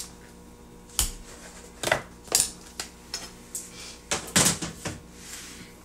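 Kitchen dishes and utensils being moved and set down on the counter: a series of separate knocks and clinks, with a denser clatter about four seconds in.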